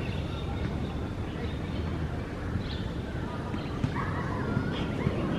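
Birds chirping and calling over a steady low outdoor rumble, with a burst of warbling calls about four seconds in and a couple of sharp taps.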